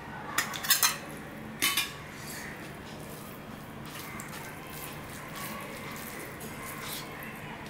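Stainless steel tableware clinking: a few sharp, ringing metal clinks within the first two seconds as a steel bowl and serving spoon are set down by the plate. After that, only faint sounds of fingers mixing rice and curry on a steel plate.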